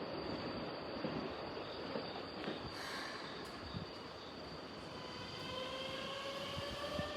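Keikyu electric train running through the station with a steady rumble of wheels on rail. From about five seconds in, a motor whine rises slowly in pitch as the train accelerates away.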